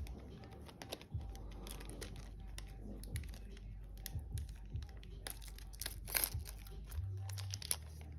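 Foil trading-card booster pack crinkling and tearing open, heard as a run of small crackles and clicks that is loudest about six seconds in.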